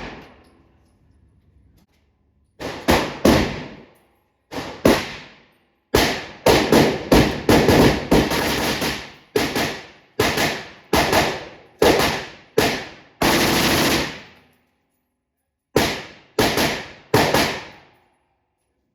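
9mm pistol gunfire: a string of about twenty sharp shots in short groups, mostly half a second to a second apart, each trailing off in a brief echo.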